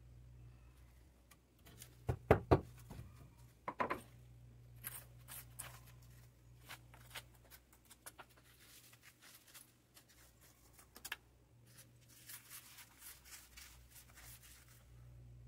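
Stone-laying work on flagstone: a quick run of three sharp knocks about two seconds in and another near four seconds, then lighter scattered taps and a stretch of scraping near the end, over a steady low hum.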